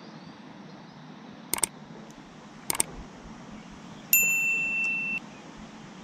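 A bright electronic ding, held for about a second starting about four seconds in, from a subscribe-button overlay animation. Before it come two short sharp clicks, over a steady background hiss.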